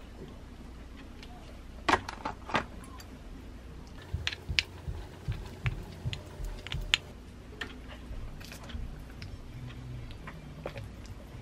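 Kitchen handling sounds: a few sharp clicks about two seconds in, then a run of quick taps and scrapes as a metal spoon puts rice into a plastic musubi mold.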